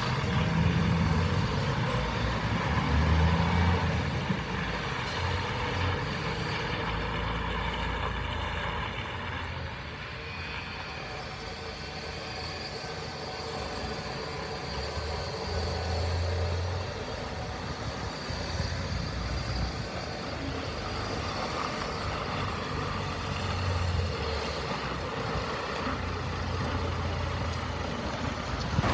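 Diesel engine of a 2007 DAF CF suction excavator truck running steadily, its low hum rising and falling a little in level.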